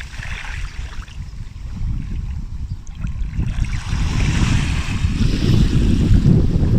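Sea waves washing onto a sandy beach, with wind buffeting the microphone in a steady low rumble. The surf hiss swells louder from about four seconds in.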